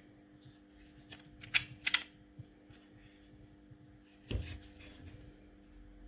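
Light clicks and taps of a hard Kydex holster and the metal multitool in it being handled and turned over in gloved hands, a quick cluster of them about a second or two in and a duller knock a little past four seconds. A steady low electrical hum runs underneath.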